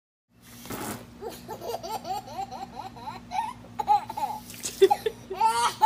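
A baby laughing in a run of short repeated bursts, growing louder near the end.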